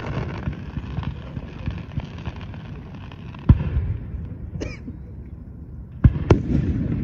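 Aerial firework shells bursting in a fireworks display. A sharp boom comes about three and a half seconds in, and two more come close together near the end, over a low rolling rumble of echoes.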